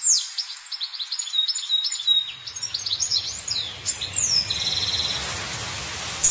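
Birds chirping and twittering: quick high chirps and down-slurred notes, with a rapid trill about four and a half seconds in, over a steady low hiss that starts about two seconds in.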